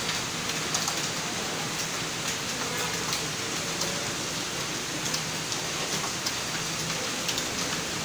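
Computer keyboard keys clicking in quick, irregular succession as someone types continuously, over a steady background hiss.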